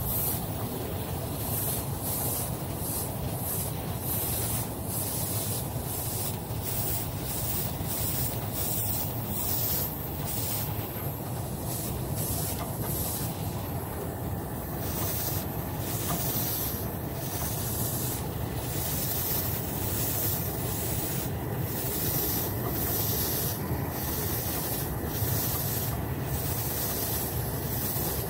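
Airbrush spraying touch-up paint onto a car's lower door panel in repeated short hisses, about one or two a second, over a steady low rumble.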